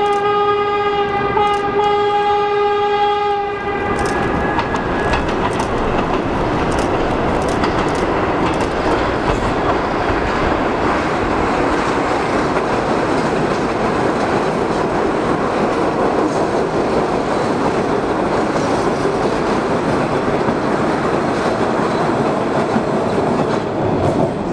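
A vintage New York City subway train of R33 and R36 cars sounds its horn in one long blast for about the first three and a half seconds, then its cars rumble past on the tracks with the clatter and clicks of steel wheels on the rails.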